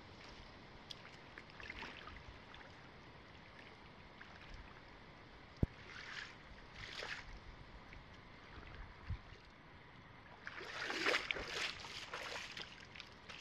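Faint splashing of a person wading in shallow lake water and filling a collapsible water-filter bag, with soft splashes about six and seven seconds in and a single sharp knock just before them. Louder sloshing footsteps through the water near the end as he wades back out.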